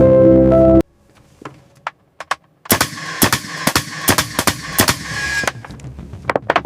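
Background music stops under a second in. A few light clicks follow, then a rapid, irregular run of sharp knocks over a steady hiss for about three seconds, from tool work on the wooden interior fit-out.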